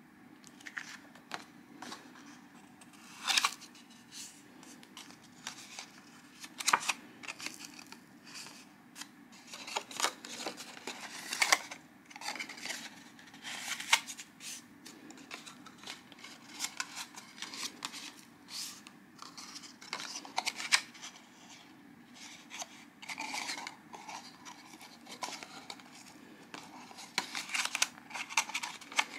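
Stiff white paper being folded and creased by hand along its dashed fold lines: irregular crisp crackles and sharp snaps as each fold is bent and pressed, with the sheet rubbing and sliding between the fingers.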